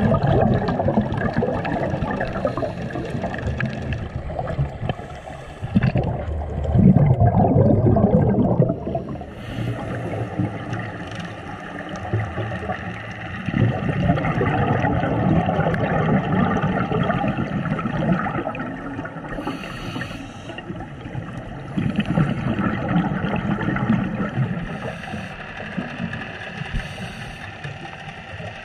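Scuba diver breathing through a regulator underwater: rumbling gushes of exhaled bubbles every several seconds, with short hisses of inhalation between them.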